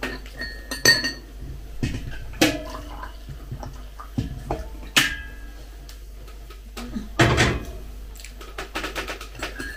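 Water poured from a metal stovetop kettle into a mug, with light clinks and knocks of the kettle and mug; after about seven seconds a louder clatter as the kettle is set back on the gas stove.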